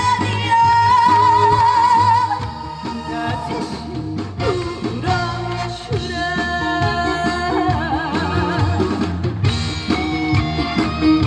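A female singer performing a Korean trot song live over a band backing track, holding long notes with a wide vibrato about a second in and again near the end.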